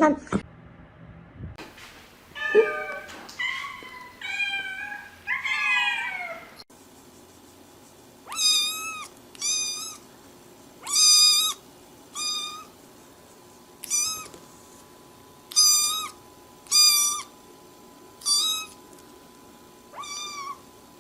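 Cats meowing: first a few meows that slide up and down in pitch, then a high-pitched cat meowing over and over, about eight short, even calls a second or two apart.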